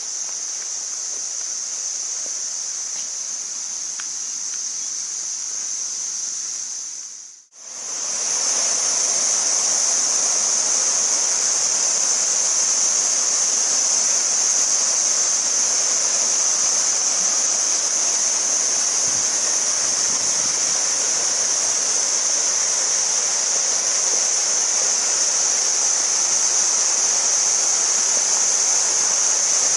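Steady rush of a waterfall, with a constant high-pitched insect drone over it. The sound drops out for a moment about seven seconds in, then returns louder and fuller.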